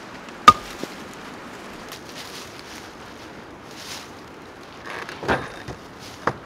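Sharp wooden knocks of firewood being handled: one loud knock about half a second in, a lighter one just after, then a few more knocks near the end.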